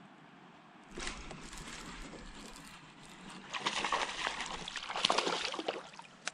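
Water sloshing and splashing at a kayak, in two stretches, the second louder, followed by a single sharp click near the end.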